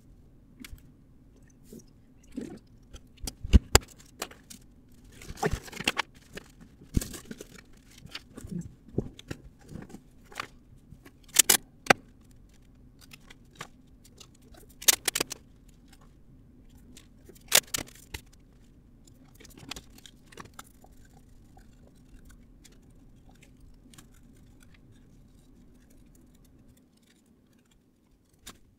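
Scattered snips, rustles and sharp clicks of tools and material being handled while a coat is made, with a faint steady hum underneath. The busiest stretches come about 3, 6, 11, 15 and 17 seconds in, and the sounds thin out near the end.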